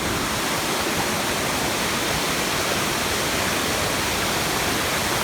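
Tall mountain waterfall running high after rain, a steady, even rush of falling water close by.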